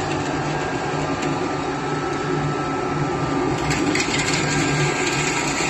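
Screw-type charcoal briquette extruder running steadily, its motor and auger humming at an even pitch, with a few light clicks about four seconds in.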